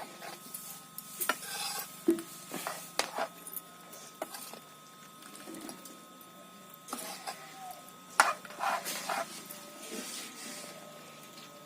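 Irregular clinks and scrapes of a spoon against dishes, with a few sharper knocks spread through.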